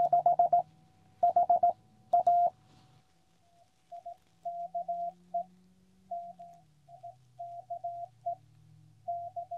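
Morse code (CW) beeping from a QCX Mini transceiver through a small speaker: one steady tone keyed on and off in dots and dashes. For the first couple of seconds it is loud, the operator's own sidetone as she sends with a paddle. From about three and a half seconds in, the keying is fainter: the other station's reply coming in.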